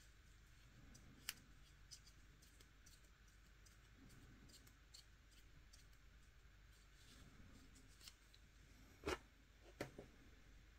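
Near silence: faint rubbing and scratching of a wipe buffed over a gel nail, with scattered light clicks, one about a second in and two sharper ones near the end.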